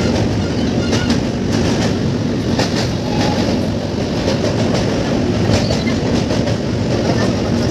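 Passenger train crossing a steel truss bridge, heard from on board: a loud, steady rumble of wheels on the rails with many irregular clacks.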